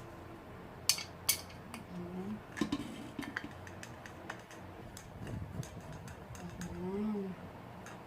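Scattered light clicks and knocks of an electric grill's parts being handled and fitted together. A faint voice murmurs briefly once or twice.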